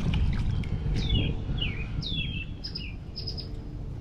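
Bird calls: a run of about five short, downward-sliding notes over two seconds, with a few brief higher notes near the end, over a steady low rumble of wind.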